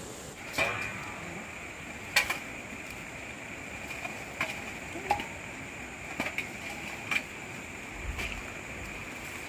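About half a dozen light knocks and clinks, scattered irregularly, over a steady high-pitched background whine.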